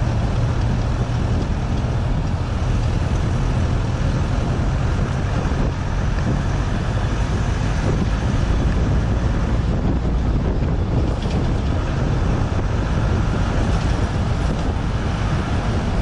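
Steady wind rumble on the microphone of a camera on a moving car, with road noise from the car driving along a highway.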